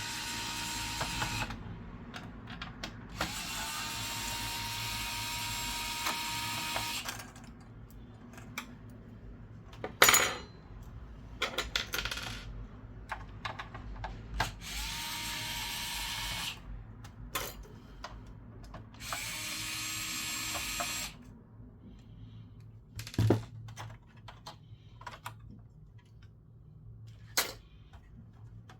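Electric screwdriver running four times in short runs of a few seconds, its motor note steady once up to speed, as it backs screws out of a PS5 Slim's chassis. Between runs come small sharp metallic clicks and taps of screws and tools being handled, the loudest about ten seconds in.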